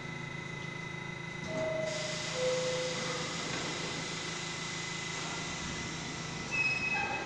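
R68-type subway train standing at the platform, its equipment humming under a steady high whine. About one and a half seconds in, the two-note falling door chime sounds, and a steady hiss comes up after it. A short high beep follows near the end.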